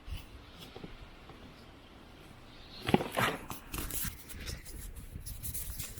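Hands working at a geocache container to get it open: quiet fumbling at first, then a sharp click about three seconds in, followed by a run of short clicks and scrapes.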